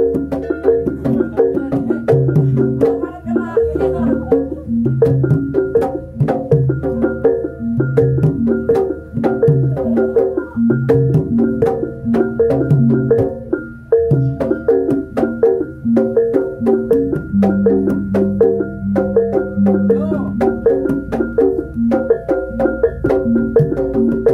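Javanese jaranan gamelan music: tuned metal gong-chimes and keyed metallophones over drums, in a steady, repeating rhythmic pattern.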